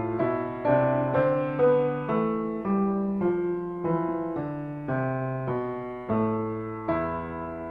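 Solo piano music, with notes or chords struck about twice a second, each fading before the next.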